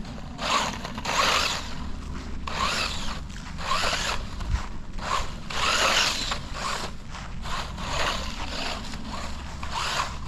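WLtoy 144001 1/14-scale electric RC car being driven hard, its motor and drivetrain whirring in about a dozen short bursts as the throttle is worked.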